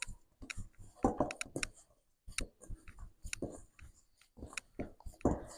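Hands kneading whole wheat poori dough: irregular short clicks and soft sticky sounds as the dough is pressed and folded.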